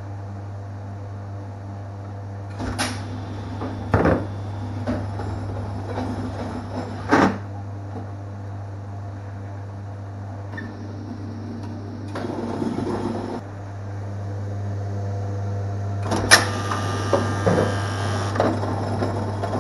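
Mendes 90 Bowlingo pinsetter running with a steady hum. Loud metallic clunks come about 3, 4 and 7 seconds in, a short mechanical run about 12 seconds in, and a longer clattering stretch of its chain-and-sprocket mechanism near the end.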